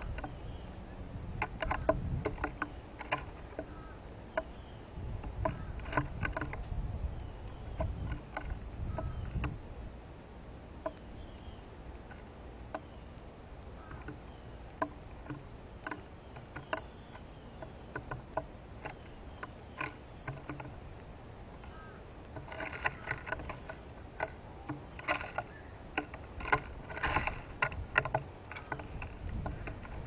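Painted buntings pecking at seed and hopping on a wooden feeder board: irregular sharp clicks and taps in flurries, loudest in a burst near the end. A low rumble runs under the first third.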